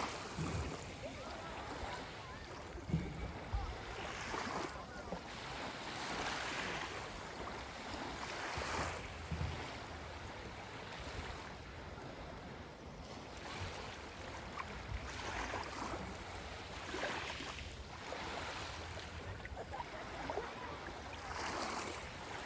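Sea waves washing onto a beach: a hiss of surf that swells and eases every few seconds, with a few low thumps, the loudest about three seconds in.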